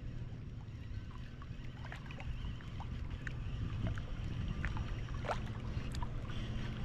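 Wind buffeting the microphone as a steady low rumble, with faint scattered short chirps and ticks above it.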